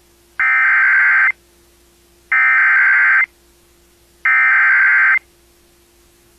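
Emergency Alert System SAME header: three identical bursts of shrill data tones, each just under a second long and about a second apart, over a faint steady hum. They mark the start of a new alert, here a severe thunderstorm warning.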